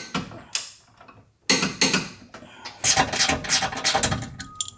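Socket ratchet clicking in short quick runs, with metallic clinks of tools and bolts.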